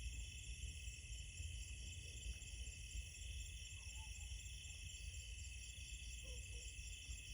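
Night insect chorus: crickets trilling steadily in several high pitches, over a constant low rumble. A couple of faint short calls come through about four and six seconds in.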